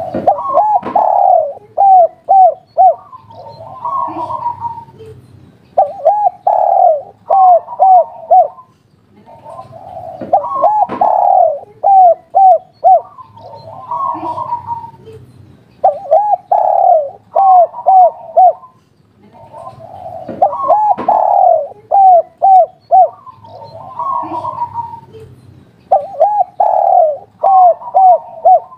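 Spotted dove (derkuku) cooing over and over in the local 'kuk 3' style. Each phrase is a rough opening coo followed by a quick run of short, even coos, and a new phrase comes every few seconds.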